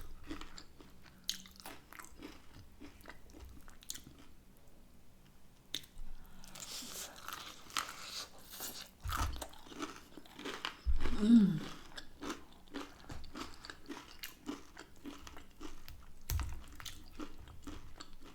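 Close-miked biting and chewing of breaded hot and spicy chicken wings, with crisp crunches and many small wet mouth clicks, eaten off the bone.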